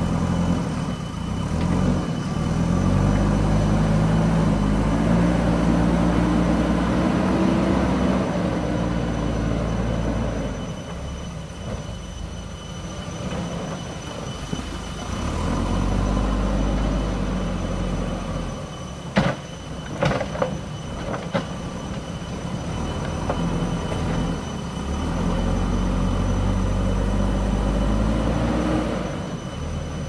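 JCB 3CX backhoe loader's diesel engine revving up and easing off as the machine drives and works its front loader bucket, its pitch rising under load in the first few seconds and again near the end. A few sharp clanks come about two thirds of the way in.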